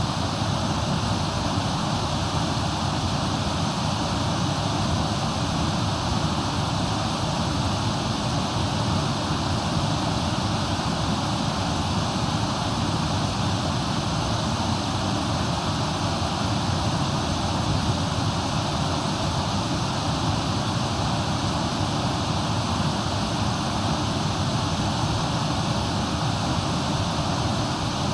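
Steady rush of a waterfall and river, an unbroken noise at an even level.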